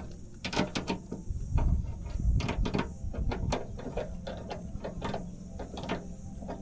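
Irregular clicking and light metallic rattling as a nut is tightened onto a bumper quick-release fastener's bolt, with low rumbling handling noise about a second and a half in.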